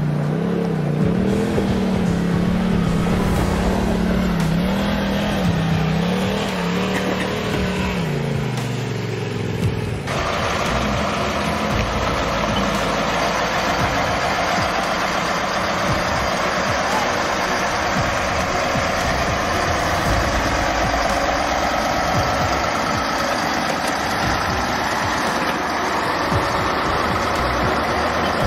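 Heavy off-road truck's diesel engine working under load as it crawls over rock, its note rising and falling, then dropping away about nine seconds in. After that, a MAN KAT1 8x8 military truck's engine runs steadily under load as it climbs and twists over a rocky slope.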